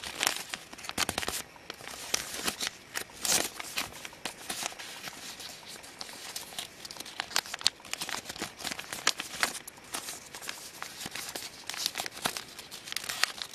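A sheet of white paper being folded and creased by hand, a steady run of rustles, crinkles and short sharp creasing crackles.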